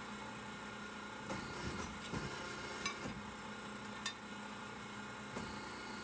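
Steady hum of a sheet-metal punch press, with a few light metallic clicks and knocks as a steel plate is slid and positioned on its table, the sharpest about three and four seconds in.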